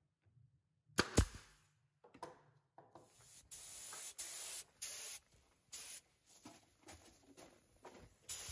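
A pneumatic nailer fires with two sharp cracks about a second in. From about three seconds on, a compressed-air paint spray gun hisses in short on-off bursts as water-based paint is sprayed.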